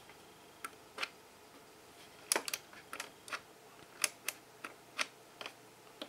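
Irregular light clicks and taps, about fifteen in all, from fingers handling the plastic parts and wiring inside the opened back of a coffee machine.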